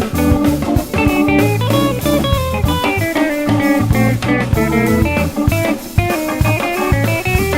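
Background music: a blues-style guitar track with bass and drums.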